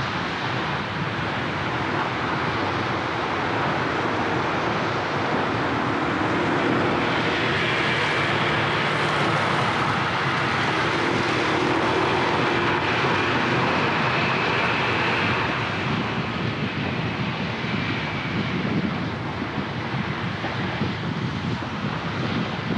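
Steady city traffic and road noise from driving, with the sound of a passing engine carrying a faint whine that swells from about a third of the way in and fades again about three-quarters through.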